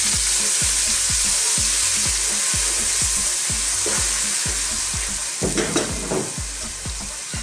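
Finely chopped onions sizzling hard in hot sunflower oil in a pot, just added, while a wooden spoon stirs them; the sizzle eases a little toward the end.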